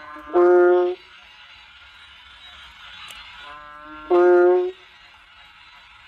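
Kaloula bullfrogs (อึ่งอ่าง) calling: short, deep, droning calls, each a fainter lower call running straight into a loud one, heard twice about four seconds apart over a steady background hiss.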